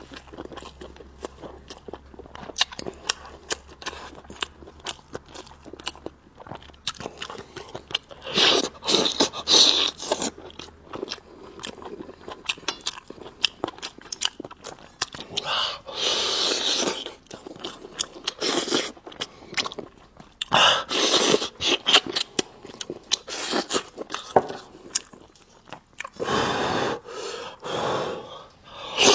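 Close-miked eating of spicy braised ribs: steady chewing, biting and crunching with wet mouth clicks. Several louder bursts of about a second each stand out, about every four to five seconds in the second half.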